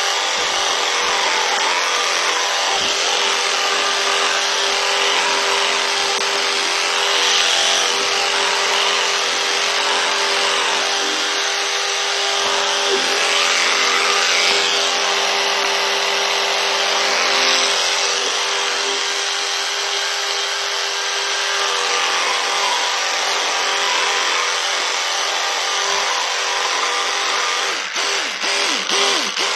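Electric toothbrush brushing teeth: a steady motor buzz with the scrubbing of the brush head, swelling and easing a little as it moves. A brief unsteady moment with a few clicks near the end.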